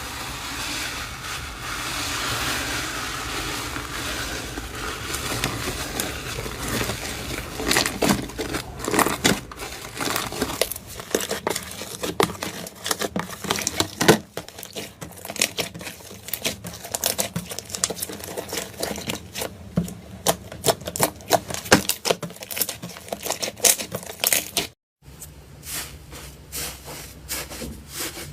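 Slime being squeezed and played with by hand. It starts as a soft, even squishing hiss for several seconds, then turns into many sharp crackling pops and clicks. The sound breaks off briefly near the end and then resumes.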